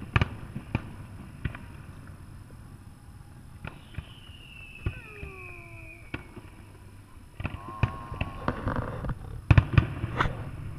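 Fireworks shells bursting over water: a series of sharp bangs, with a long falling whistle near the middle and several bangs close together near the end.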